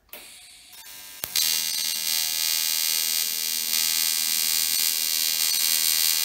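AC TIG welding arc on 1.5 mm aluminium sheet: a sharp click about a second in as the arc strikes, then a loud, steady buzz as the weld runs.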